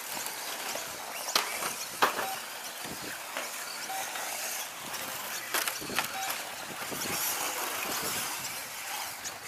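1/10-scale electric radio-controlled short course trucks racing on a dirt track: a steady high whine and hiss of motors and tyres on dirt. Occasional sharp knocks stand out, the loudest about two seconds in.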